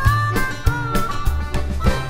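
Background country music: guitar melody over bass with a steady drum beat.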